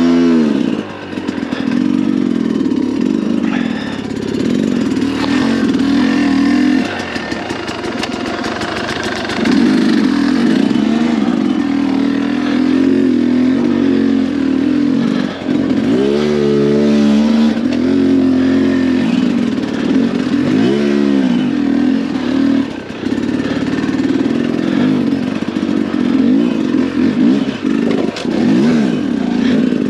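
2022 Sherco 300 SE Factory's two-stroke single-cylinder engine running at low revs, its pitch rising and falling constantly with the throttle. There are a few sharp blips of revs past the middle.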